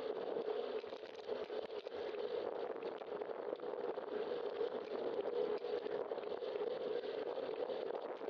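Steady tyre and wind noise of a bicycle rolling along a city street, picked up by a camera mounted on the bike, with small bumps from the road surface.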